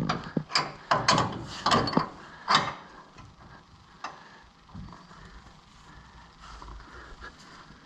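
Hand tools working on metal as control-arm hardware is fitted: a quick run of sharp clanks and clicks in the first three seconds, then quieter scattered tool sounds.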